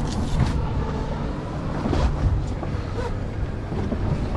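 A center-console fishing boat under way on choppy water: a steady engine rumble and water noise, with wind on the microphone and a few knocks of the hull on the chop.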